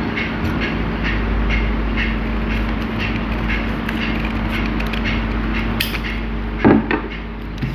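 Scissors cutting paper, with a sharp snip a little before the end and a louder clunk near the end, when the scissors are set down on the wooden table. Under it runs a steady background noise with a faint regular pulse about twice a second.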